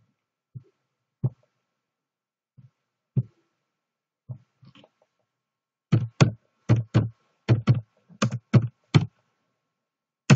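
Computer keyboard keystrokes: a few scattered key presses, then a quick run of about a dozen keystrokes as a command is typed, and one more sharp key press at the very end.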